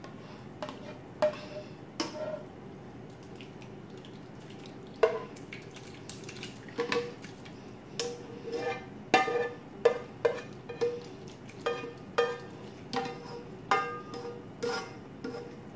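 Black spatula knocking and scraping against a white skillet as sautéed mushrooms, spinach and onion are pushed off into a bowl of egg-and-cream mixture. The knocks are sparse at first, then come about one or two a second from about five seconds in, each ringing briefly.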